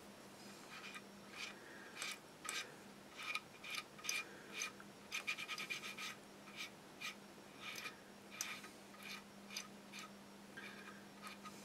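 Cotton bud scrubbing over the plastic hull of a Tamiya SU-76M model kit, wiping off excess wash: faint scratchy rubbing in short strokes, with a quick run of rapid strokes about five seconds in.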